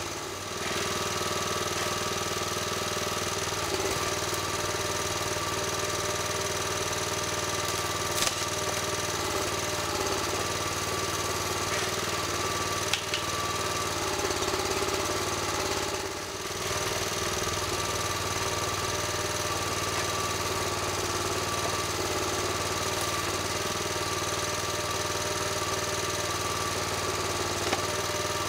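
A small engine of the ATV and crane-trailer setup runs steadily at a constant speed. There are two brief dips in loudness, one near the start and one about halfway through, and a few faint sharp clicks.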